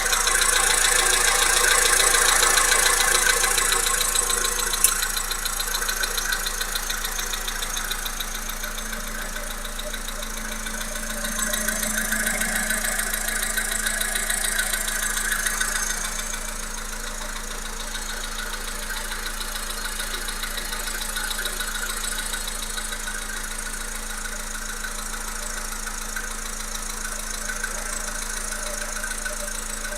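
Volkswagen Polo Sedan's 1.6-litre CFNA four-cylinder petrol engine running with a rapid knocking, the engine knock fault this engine has. The knock swells louder over the first few seconds and again from about eleven to sixteen seconds in.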